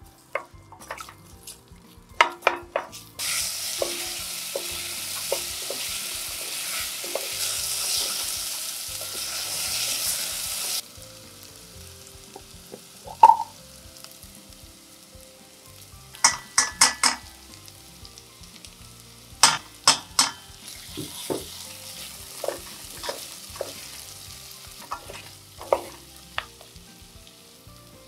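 Cubed potatoes and crushed garlic sizzling in a stainless steel pot while a wooden spoon stirs them, with sharp knocks of the spoon against the pot. The loud sizzle cuts off suddenly about a third of the way in; a single ringing clink follows, then runs of spoon knocks and a fainter sizzle as gochujang is stirred into the potatoes.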